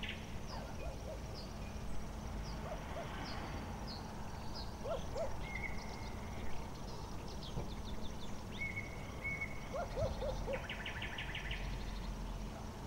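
Night-time outdoor ambience: a steady low hum under scattered short high chirps and rapid trills. Small groups of brief low calls come every few seconds.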